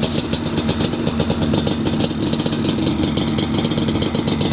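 Yamaha Banshee's two-stroke twin engine idling steadily just after a kick start, an even, rapid firing rhythm that is quiet and beautiful-sounding.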